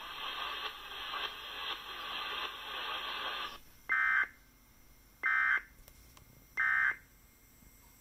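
Emergency Alert System end-of-message data bursts: three short, identical bursts of warbling digital tone, about a second apart, played through a laptop speaker, which mark the end of the alert. Before them a stretch of hissy relayed broadcast audio cuts off about three and a half seconds in.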